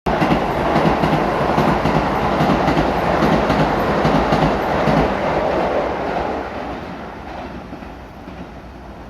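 Keisei Evening Liner express train passing through the station at speed without stopping, its wheels clicking rapidly over the rail joints. Loud at first, the sound dies away from about six seconds in as the train moves off.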